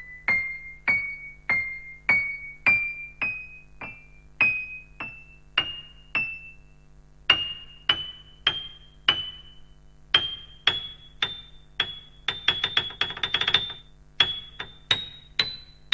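Kurzweil KA90 digital piano playing single high notes one at a time, each a little higher than the last, about every half second. About three-quarters of the way through comes a quick flurry of rapid notes, and a faint steady low hum sits underneath.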